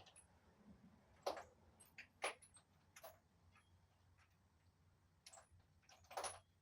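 A handful of faint, sharp clicks and knocks at irregular intervals over a low steady hum, the loudest about a second in, a second later, and again near the end.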